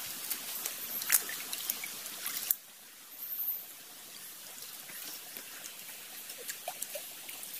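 Hands splashing and stirring in shallow stream water, with small sharp clicks and the trickle of the stream. About two and a half seconds in the sound drops suddenly and goes on quieter, with only occasional clicks.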